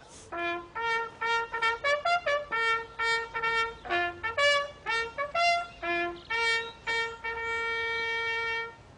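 Military bugle call sounded for a flag-raising: a string of short, separate notes on a few pitches, ending in one long held note.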